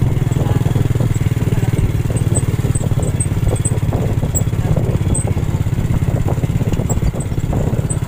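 Motorcycle engine running steadily while under way, heard from aboard the vehicle, with some rattling over the road.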